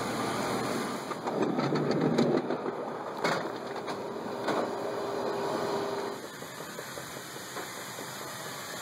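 Rumbling and knocking of a loaded cargo pallet being pushed over the floor rollers in a C-17 cargo bay, over a steady mechanical background noise; a single held tone sounds for a couple of seconds and stops, and the sound drops to a quieter steady noise about six seconds in.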